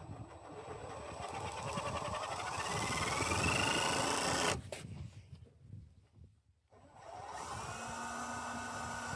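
Power drill running in two bursts. The first lasts about four seconds, its whine rising in pitch as it speeds up, then stops. After a pause of about two and a half seconds it starts again and runs steadily.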